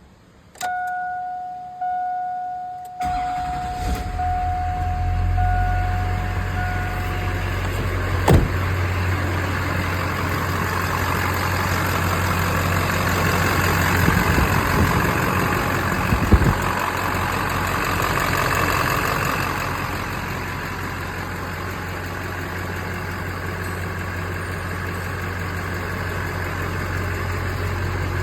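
Dashboard warning chime beeping repeatedly as the ignition comes on, then the engine cranks briefly and starts about three seconds in and runs on at a steady idle. It starts now that the crank-no-start has been traced to a missing ECM fuse.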